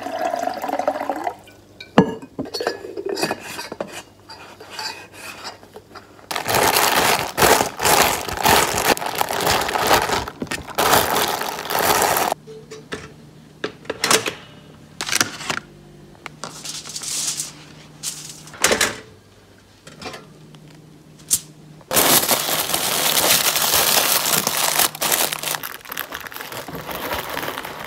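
Breakfast-making sounds: water poured into a plastic cup, clinks and knocks of dishes and utensils, clicks at a toaster, and long stretches of rushing or crinkling noise, the last of them as aluminium foil is wrapped round food.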